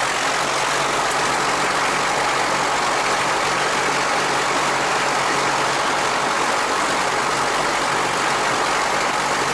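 Piper PA-28-140 Cherokee's four-cylinder Lycoming engine and propeller running steadily at low taxi power, heard from inside the cabin.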